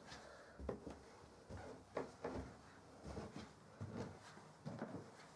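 Faint footsteps and soft handling knocks, irregular, about one a second, over quiet room tone.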